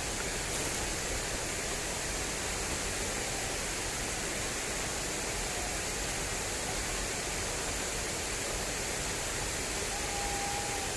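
Fast-flowing water rushing steadily along an irrigation channel, an even, unbroken hiss.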